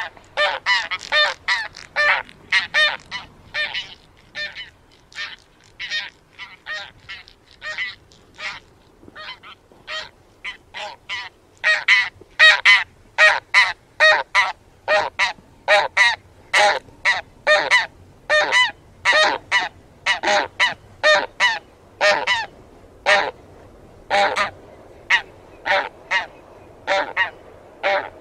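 A flock of taiga bean geese honking in flight: short nasal calls overlapping, several a second. The calls are softer for a stretch in the first third, then louder and denser from about halfway.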